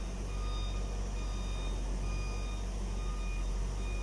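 Steady low hum of a diesel engine running, with an electronic alarm beeping about once a second over it.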